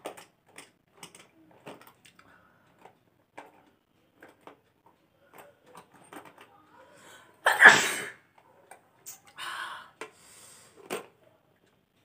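A woman's sneeze, loud and sudden about two-thirds of the way through, brought on by tickling the inside of her nostril with a rolled strip of newspaper. Before it there are faint short sniffs and snuffles, and after it a few shorter breathy bursts.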